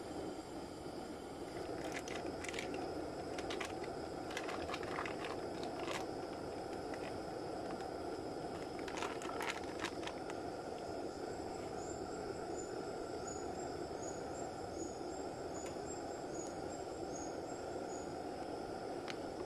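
Portable gas canister stove burning steadily under a camping kettle, an even rushing noise, with a few clinks and knocks from the kettle and gear being handled in the first ten seconds.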